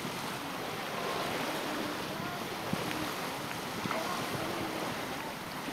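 Steady outdoor rushing of sea surf and wind, with a few faint snatches of distant voices.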